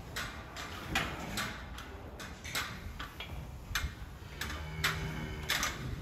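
Irregular sharp clacks and knocks, roughly one or two a second, of hard things striking in a cattle barn.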